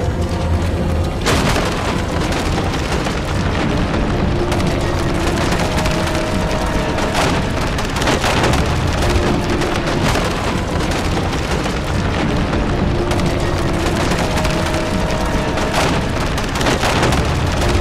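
Stone-breaking sound effect: a continuous heavy rumble of crumbling rock, with loud crashes about a second in, twice around seven to eight seconds in, and again near the end. Steady held tones, like music, run underneath.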